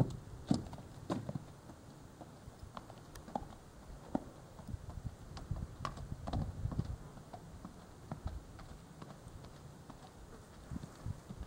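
Palomino Quarter Horse gelding's hooves clopping on hard, stony ground, as a scatter of light, irregular knocks.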